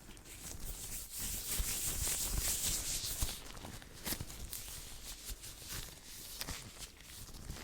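Hands rubbing and brushing together close to the microphone. The swishing rub is loudest from about one to three seconds in, then turns into lighter rubs with a few small clicks and taps.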